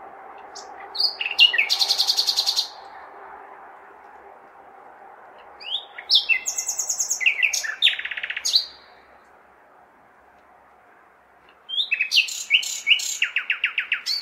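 Nightingale singing three loud phrases, each of a few short whistled notes followed by a fast run of repeated notes, with pauses of a few seconds between them. Under the song runs the steady background hum of a large city.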